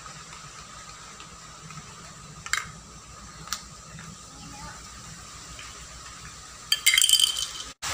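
Small cosmetic containers being handled: a couple of light plastic clicks, then a burst of sharp clinks with a short ring about seven seconds in, over a steady background hiss.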